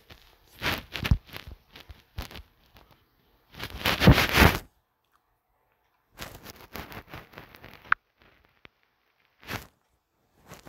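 Irregular bursts of rustling, crackling noise, the loudest about four seconds in, with a sharp click near eight seconds.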